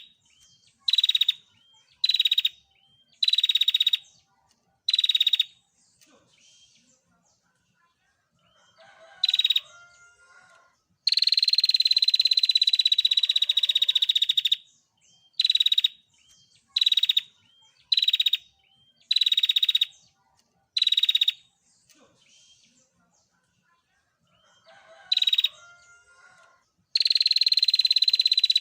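Female prinia (prenjak) giving its dry rapid 'tir' trill: a run of short trills about once a second, then long trills of about three seconds each, near the middle and again near the end.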